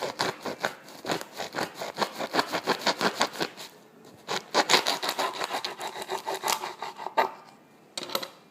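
A knife sawing back and forth through the stalk end of a microwaved ear of corn still in its husk, in quick rasping strokes about five a second. The sawing pauses briefly about four seconds in, starts again, and ends with a short last burst near the end.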